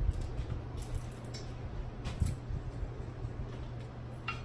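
Crab leg shells being cracked and picked apart by hand, a few short sharp cracks and snaps, over a steady low hum.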